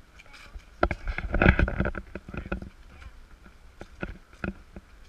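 Handling noise from a camera being moved about: scattered knocks, with a louder stretch of rubbing and bumping from about a second in to nearly three seconds in.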